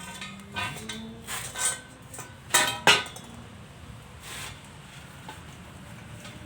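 Pieces of steel knocking and clanking together as they are handled, some strikes ringing briefly; the loudest two knocks come close together near the middle.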